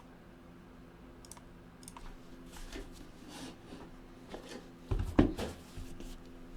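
Rustling, clicking and handling of a sealed trading-card box as it is being opened, with a sharp thump about five seconds in.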